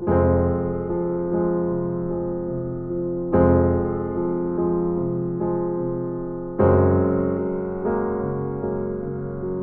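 Background music: slow electric piano chords, a new chord struck about every three seconds and left to ring and fade.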